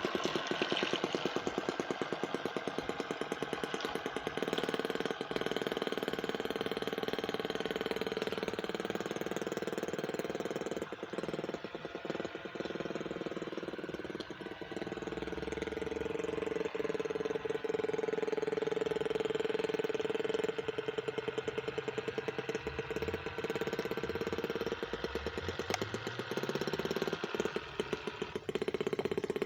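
Small gasoline engine of a radio-controlled model boat running continuously with a rapid firing beat. Its pitch and loudness rise and fall as the throttle changes, easing off a couple of times.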